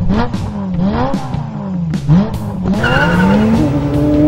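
Race car engine sound effect revving up and down in quick swells, then a tyre squeal joins about three seconds in while the engine note climbs steadily.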